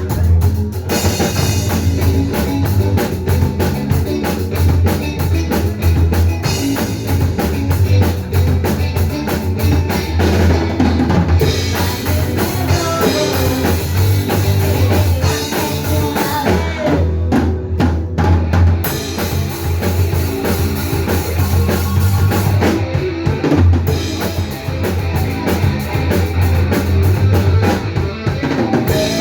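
Band playing live, loud and continuous, with the drum kit to the fore.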